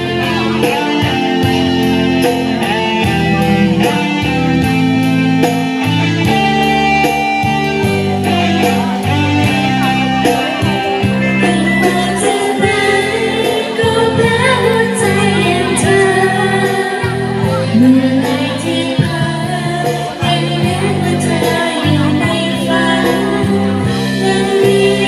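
A woman and a girl singing into microphones over recorded backing music, amplified through a PA loudspeaker.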